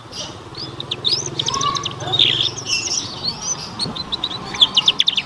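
Young canary twittering: a string of high, varied chirps and short warbles, then a quick series of downward-sweeping chirps near the end. It is the rambling early song (ngeriwik) of a juvenile canary still learning to sing.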